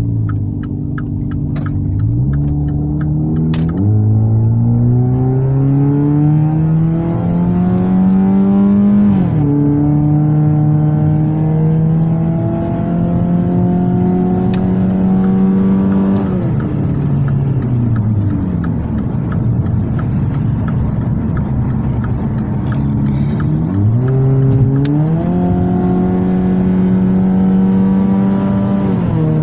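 Car engine with a muffler delete, heard from inside the closed cabin, accelerating through the gears: the exhaust note climbs and drops at three upshifts in the first nine seconds, then holds a steady drone. It falls away as the car eases off around sixteen seconds in and climbs again at about twenty-four seconds before settling into a steady drone, with a regular ticking in the first few seconds.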